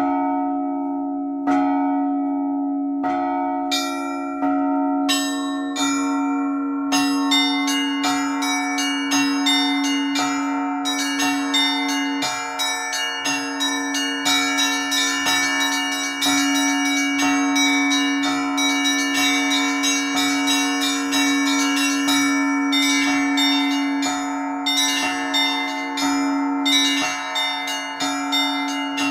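Russian Orthodox church bells rung as a peal: a low bell struck about every second and a half, with smaller bells joining about four seconds in and quick strokes on small high bells filling in from about seven seconds on.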